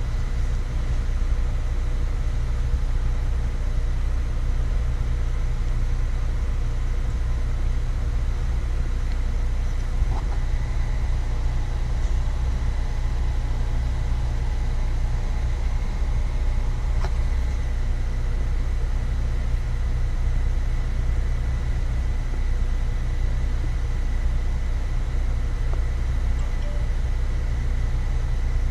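Chevrolet TrailBlazer's 4.2L Vortec inline-six engine running steadily, a constant low rumble without change in speed.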